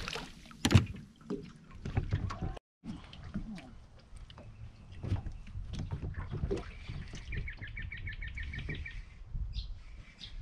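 Water and wind noise around a small aluminium boat drifting on a calm creek, with a sudden sharp sound under a second in. About two-thirds of the way through comes a rapid run of high ticking notes, about seven a second, lasting a couple of seconds.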